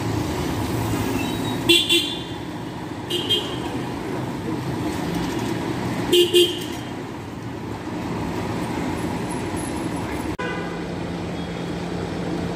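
Street traffic noise with short vehicle horn toots about 2, 3 and 6 seconds in, the first and last as quick double beeps. Near the end a steady engine hum takes over.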